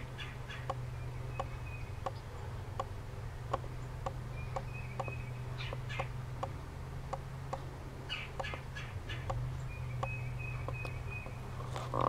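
Red-bellied woodpecker tapping at wood, slow even knocks a little faster than one a second. Other birds chip in short runs and give brief whistled notes, over a steady low hum.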